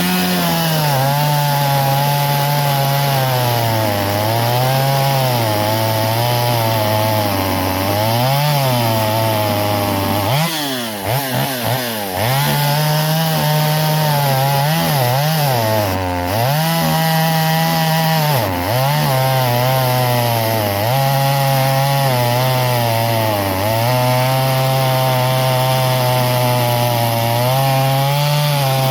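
Stihl 021 two-stroke chainsaw running at full throttle through wood, its engine pitch sagging again and again as the chain is loaded, with the deepest drop about ten seconds in. The small saw bogs when it is pushed into the cut.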